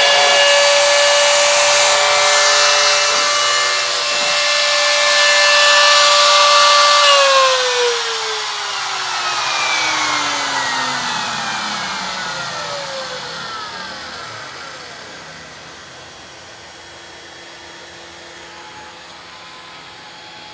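CNC spindle motor running at steady speed with a high whine and an airy hiss, then switched off about seven seconds in. The whine falls steadily in pitch and fades as the spindle coasts down.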